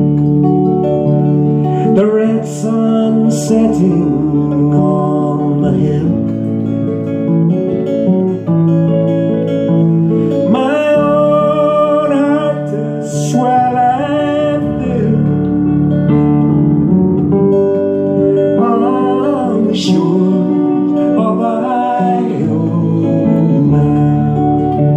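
A slow folk song played live on acoustic guitar and electric keyboard, with a man's voice singing over them at times.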